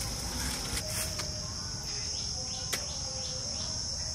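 Steady, high-pitched drone of an insect chorus, crickets or similar, with a single sharp click about two and a half seconds in.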